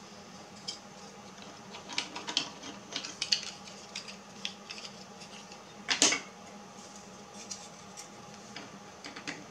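Grey plastic parts of a 1:72 scale model kit handled and pressed together in a dry fit: small scattered clicks and taps of hard plastic, the loudest click about six seconds in.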